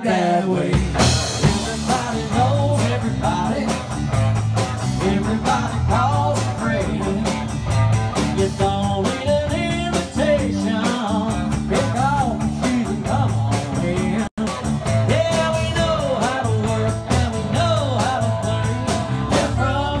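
Full band playing a modern country song in rehearsal: electric guitar, bass guitar and drums under a male lead vocal. The sound drops out for an instant about two-thirds of the way through.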